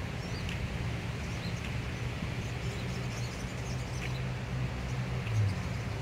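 Scattered short bird chirps over a steady low rumble.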